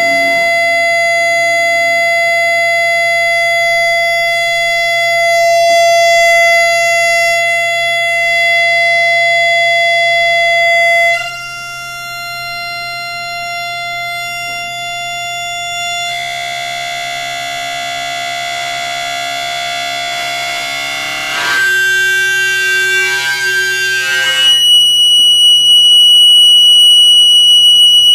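Sustained electronic drone tones from a live synthesizer and effects rig, played through loudspeakers: a steady pitched tone that jumps abruptly to new pitches several times, ending in a loud, high, alarm-like steady tone.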